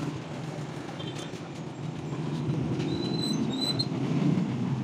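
Metal canopy frame giving short, high squeaks as its poles are handled, a brief one about a second in and a few more around three seconds in, over a steady low rumble.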